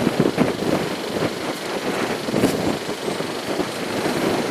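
Diesel locomotive hauling a passenger train, its engine running in a steady, uneven rumble.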